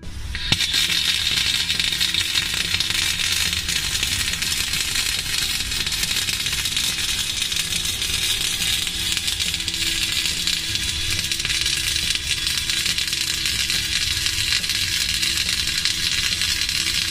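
Flux-cored arc welding with rutile flux-cored wire: the arc strikes at the start and then burns steadily with a dense, even crackle and sizzle of spatter.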